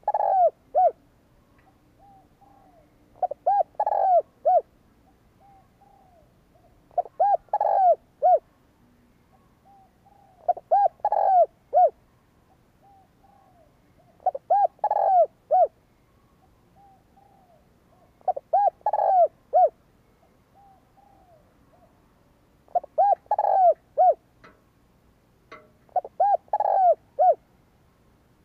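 Spotted dove cooing: a short phrase of three or four low, arched coos, repeated about every three and a half seconds, eight times.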